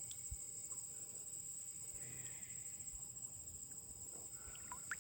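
Faint, steady high-pitched chorus of insects, crickets or similar, with a few short faint chirps near the end.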